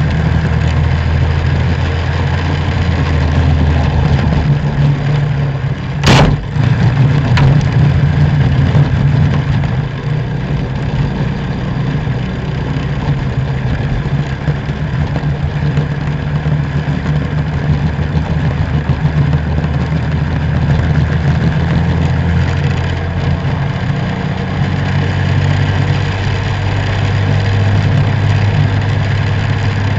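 Racing kart engine running hard at speed, its pitch shifting with the throttle through corners and straights. A single sharp knock sounds about six seconds in.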